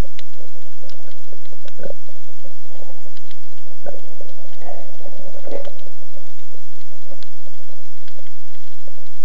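Underwater sound through an action camera's waterproof housing: a steady water hiss with a low hum, broken by scattered sharp clicks and crackles that thicken about four to six seconds in.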